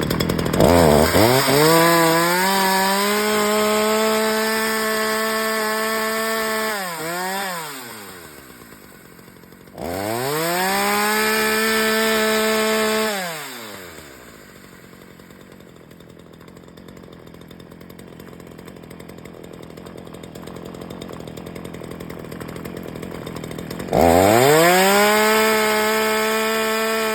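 Ryobi 14-inch two-stroke gas chainsaw revved to full throttle three times, each rev a rising whine that holds steady for a few seconds and then falls back. Between revs the engine idles more quietly; the longest idle runs for about ten seconds in the middle.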